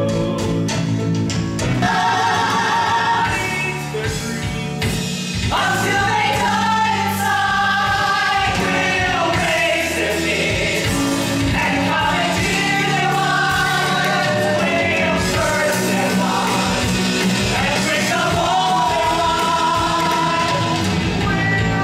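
Rock-musical number: several voices singing together over a rock band accompaniment.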